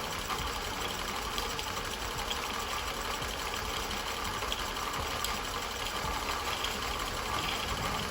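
Techsew 810 industrial sewing machine running steadily at constant speed, driving its bobbin winder to fill the bobbin with thread.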